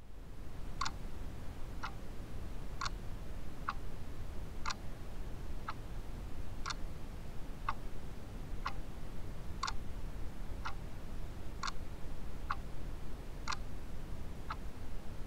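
A clock ticking steadily, about one tick a second, the strokes alternating stronger and weaker like a tick and a tock, over a low steady background rumble.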